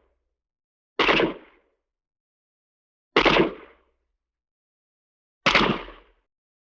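Three single gunshots from a vintage studio sound-effects library, each a sharp crack that dies away within about half a second, spaced about two seconds apart.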